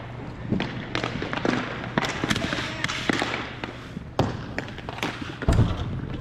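Irregular thuds of a basketball bouncing on a hard gym floor, with footfalls and background voices in a room that echoes; a heavier, deeper thud comes about five and a half seconds in.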